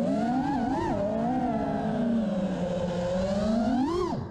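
FPV quadcopter's brushless motors and propellers whining, heard from the onboard camera, the pitch wandering up and down with the throttle. About four seconds in the whine rises to a peak, then drops away sharply as the throttle is cut.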